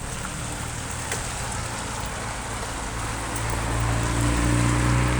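A motor vehicle's engine running, its low hum growing louder in the second half, over a steady hiss like wet road or falling sleet.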